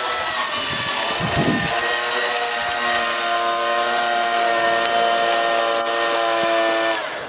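Zero electric motorcycle's motor whining at a high, steady pitch with a hiss from its rear tyre spinning on the pavement in a burnout. Near the end the whine falls in pitch and dies away as the throttle is released.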